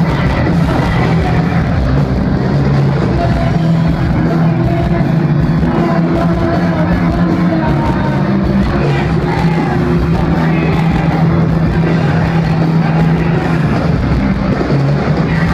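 Live rock band playing loud, heard from within the audience, a dense, unbroken wash of sound with a heavy low end.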